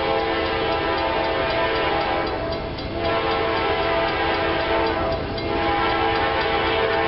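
Norfolk Southern freight locomotive's air horn sounding a multi-note chord as the train approaches, in long blasts with two brief breaks.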